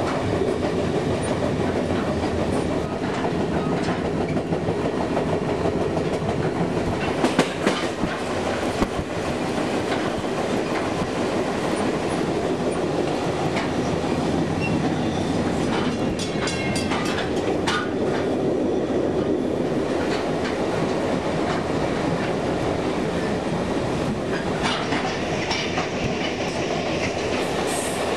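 Passenger train cars rolling along: a steady rumble with wheels clacking over the rail joints, and a few sharp clicks and rattles about a third and about two-thirds of the way through.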